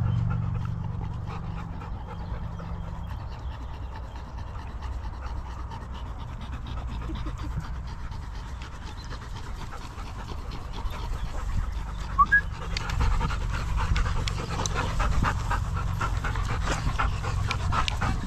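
Dogs panting close by, over a low steady rumble. The panting grows busier about twelve seconds in.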